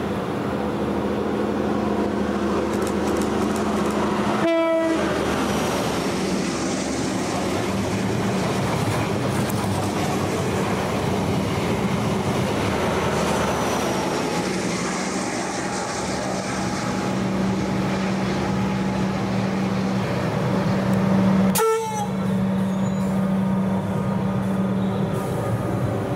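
Metro Trains Melbourne Comeng electric suburban train pulling into the platform and slowing, a steady low hum from its equipment over the rumble of wheels on rail. Two short sharp breaks in the sound, one early and one about three-quarters of the way through.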